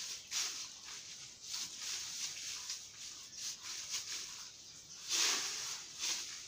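Broom sweeping bare dirt ground in repeated scratchy strokes, a few a second, with one louder stroke about five seconds in.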